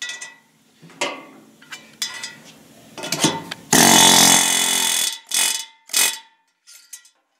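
Pneumatic air hammer driving a knock-in valve guide into a cast-iron 454 big-block Chevy cylinder head: one loud rattling burst of just over a second, then two short bursts. Before it come sharp metal clicks and clinks as the guide and collar are set in place.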